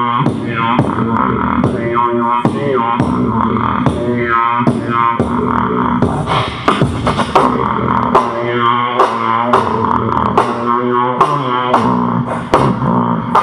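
Solo beatboxing into a handheld microphone: a buzzing throat bass line whose notes glide in pitch, over a steady beat of sharp snare and hi-hat sounds about twice a second.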